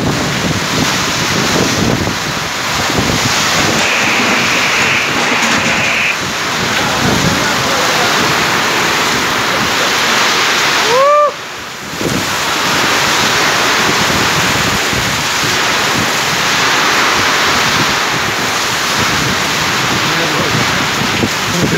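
Heavy rain and strong wind, a loud steady rush of noise with wind buffeting the microphone. A high steady whistle sounds for about two seconds early on. About eleven seconds in, a short rising squeal cuts through, and the noise drops for a moment.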